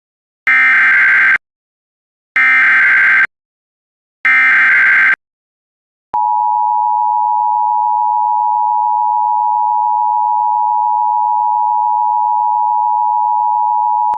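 Emergency Alert System tones: three short bursts of SAME digital header data about two seconds apart, which encode the alert. From about six seconds in comes the loud, steady two-tone EAS attention signal, which announces that an emergency message follows.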